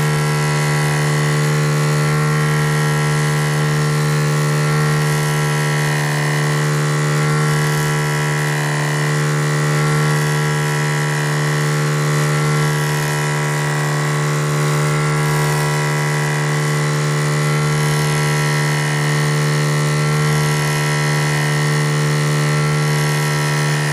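Small electric motor of a converted washing-machine pump running with a steady hum.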